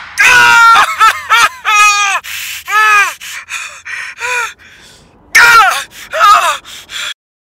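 A person screaming and crying out in a string of loud, high-pitched wails and gasps, acted in an audio drama. It breaks off abruptly near the end.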